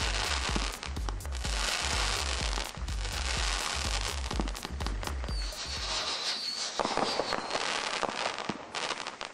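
Winda Winter Blast 20-shot aerial repeater firing: shots launching with crackling and sharp reports, and a brief wavering whistle around the middle. A music track with a heavy stepping bass plays under it and stops about six seconds in.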